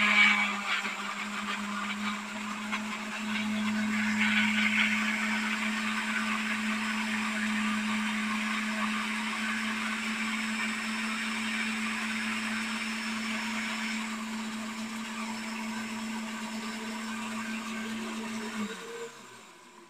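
Philco electric blender running steadily, churning raw chopped potato with a little water into a puree. Near the end it is switched off and the motor winds down.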